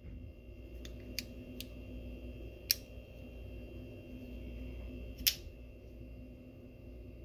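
Reese Weiland double-action hawkbill folder with a titanium framelock being closed and opened again. A few light metallic clicks come from the lock and blade being worked, then two sharp snaps, about two and a half and five seconds in, as the blade shuts and then springs open and locks.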